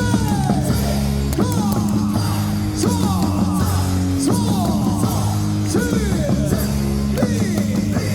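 Loud rock music with singing, played over a ballpark's sound system.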